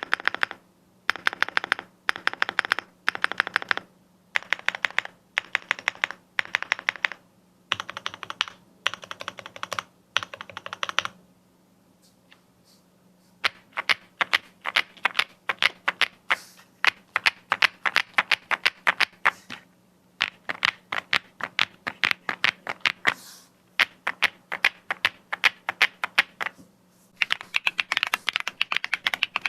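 Typing sound test on a Weikav Sugar65 65% mechanical keyboard kit with linear switches: short bursts of fast keystrokes separated by brief pauses, then a brief stop and steady continuous fast typing. A faint steady hum lies underneath.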